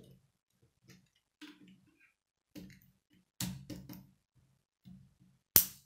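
K'nex plastic rods and connectors clicking and knocking together as they are handled and fitted. The clicks come one by one, with a quick cluster partway through and one loud, sharp snap near the end.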